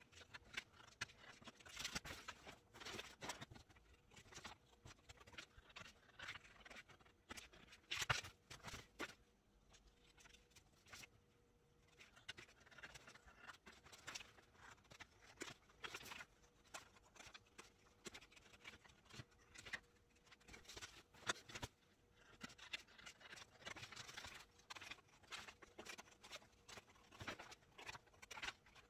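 Scissors cutting through a large paper sewing pattern: faint runs of quick snips with the paper rustling, broken by short pauses.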